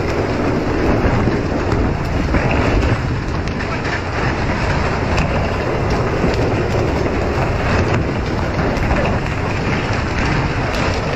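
Steady rushing of water spray from the boat's sprinkler jets and the sea along the hull of a vessel underway, over a low rumble, with a few light knocks scattered through it.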